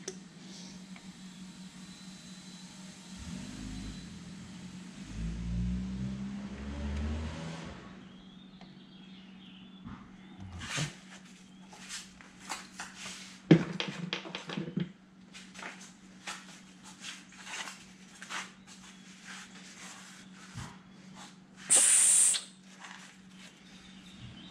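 Scattered small clicks and knocks of engine parts and tools being handled at a workbench, over a steady low hum, with a loud hiss lasting about a second near the end.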